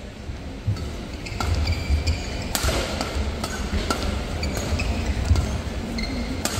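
Badminton rackets striking a shuttlecock in a fast doubles rally, a sharp hit about every second, over the low steady rumble of the arena.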